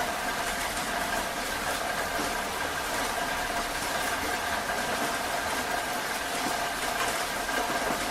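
Heavy rain falling steadily, a dense hiss of countless drops with faint, scattered splashes. A faint steady tone runs underneath.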